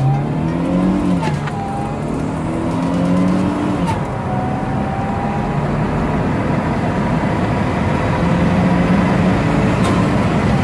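Supercharged Mercedes 230 Kompressor engine accelerating hard under full throttle, heard from inside the cabin. The engine note climbs and drops at an automatic gear change about a second in and again about four seconds in, then climbs steadily. A high supercharger whine rises and falls with it.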